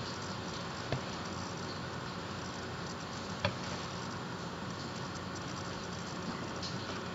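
Steady background hiss of room tone, with two short clicks, one about a second in and a sharper one a little before the middle.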